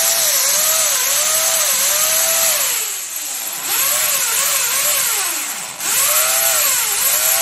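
Corded electric drill boring into a wall, its motor whine dipping in pitch and recovering about every half-second as the bit bites. It bogs down deeply twice, about three seconds in and again near the end, before speeding back up.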